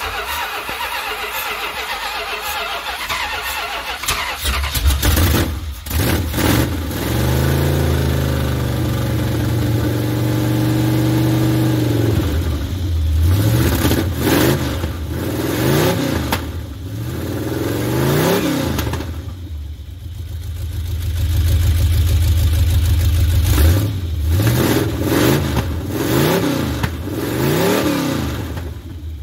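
Mopar big-block V8 in a Dodge Ramcharger on its first start with a freshly installed Carter Thermoquad carburetor, its float bowls primed by hand and its choke not connected. The starter cranks for about four seconds before the engine fires and catches. The engine then runs with repeated revs up and down as the throttle is blipped to keep it going.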